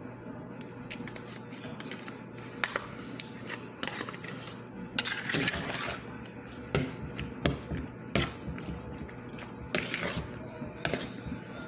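A metal spoon knocking and scraping against plastic bowls and containers as food is spooned, in irregular clicks with a longer scrape about five seconds in. A faint steady low hum runs underneath.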